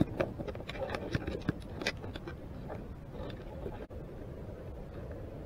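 Underwater, sharp clicks and scrapes of a green shore crab's legs against the camera housing, bunched in the first two seconds, over a steady low rumble and hiss of water.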